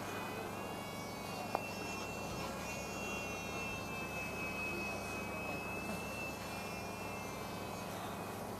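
High, steady whine of an electric model airplane motor and propeller. The pitch rises slightly a few seconds in, holds, then fades near the end. A single sharp click comes about a second and a half in.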